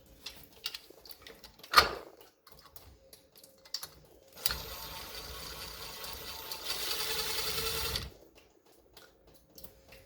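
Clicks and knocks of shower valve parts being handled and fitted, with one louder knock about two seconds in, then a steady mechanical whirring for about four seconds that grows louder before cutting off.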